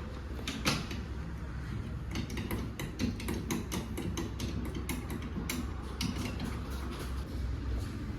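Hand-tool work on a Kombi: irregular metallic clicks and knocks as the rear ladder is taken off.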